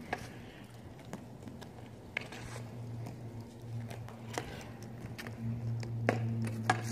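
Street hockey on asphalt: scattered sharp clicks and taps of a hockey stick and ball on the pavement, the two loudest near the end, over a steady low hum.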